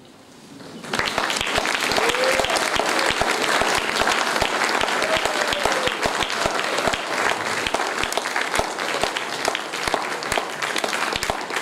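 Audience applauding. It starts about a second in after a brief hush, as dense, steady clapping.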